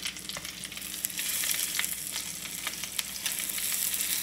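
A plant-based burger patty and sausage frying in grease in a pan: a steady sizzling hiss full of small crackles and pops, a little louder from about a second in.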